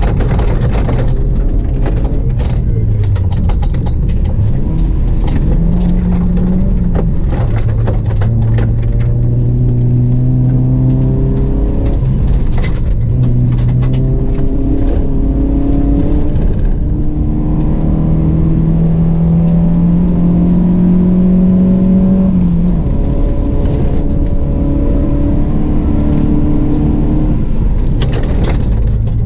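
Rally car engine heard from inside the cabin at full stage pace, its pitch climbing through the gears and dropping on gear changes and lifts, with sharp ticks and rattles of gravel striking the car.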